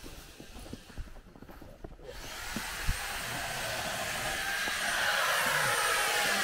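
A small motor running with a steady high whirring and a faint whine that slowly falls in pitch, starting about two seconds in and growing louder. It is said to be warming up after freezing.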